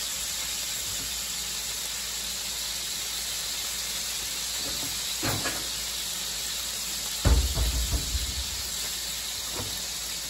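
Bison patties sizzling steadily in a hot frying pan, with a few small pops of spitting grease. One dull thump about seven seconds in is the loudest sound.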